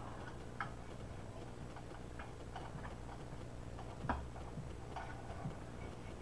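A handful of faint, irregular clicks and ticks as a water supply line's nut is threaded by hand onto a faucet's threaded tailpiece, the loudest about four seconds in, over a low steady hum.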